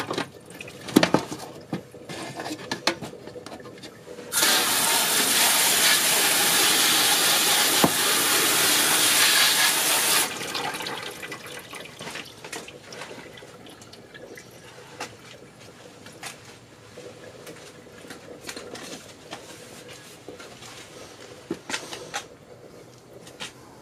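Garden-hose pistol spray nozzle spraying water onto a crab in an aluminium steamer pot: a steady loud spray starting about four seconds in and cutting off after about six seconds. Before and after it, light clicks and knocks as the crab is handled in the pot.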